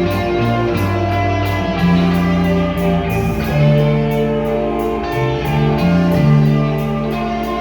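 Instrumental music: held notes over a bass line that steps from pitch to pitch, with a steady beat.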